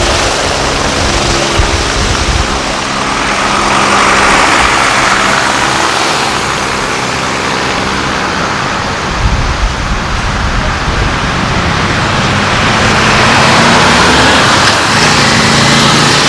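Rescue helicopter flying low overhead: steady rotor and turbine noise with wind buffeting the microphone. About halfway through, a deeper steady vehicle-engine rumble takes over.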